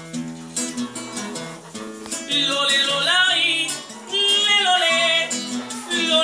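Classical-style acoustic guitar strummed in a steady rhythm, with a man's singing voice joining a little over two seconds in.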